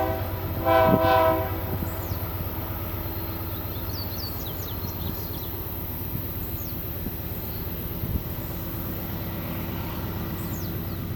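Diesel freight locomotive horn, heard from inside a railway tunnel: the end of one blast, then a second short steady blast about a second in. After it, a steady low rumble of the approaching train.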